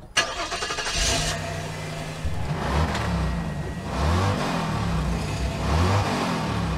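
Car engine revving several times, its pitch rising and falling between revs.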